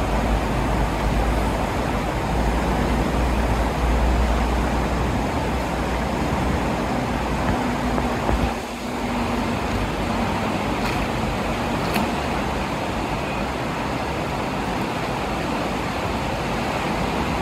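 Fast, muddy river water rushing steadily, with a deep rumble under it for the first few seconds.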